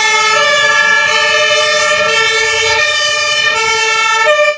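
Toy fire truck's electronic siren sound: a loud, buzzy tone that steps between pitches a couple of times and cuts off abruptly near the end.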